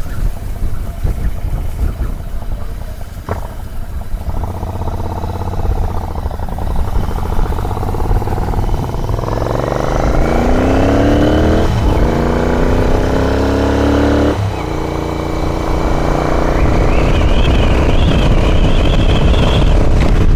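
Royal Enfield Continental GT 650's parallel-twin engine pulling away and accelerating. Its pitch rises through a gear, drops at an upshift about twelve seconds in, rises again and drops at a second upshift, then holds a steady higher note while cruising.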